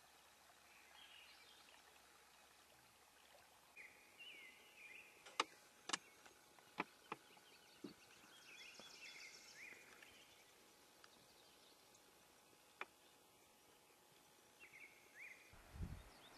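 Faint outdoor quiet with scattered short bird chirps and a few sharp clicks or snaps, the loudest two about five and six seconds in; a low rumble comes in just before the end.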